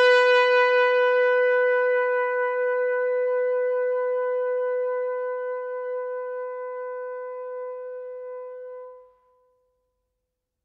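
Solo trumpet holding one long note that slowly dies away, stopping about nine seconds in.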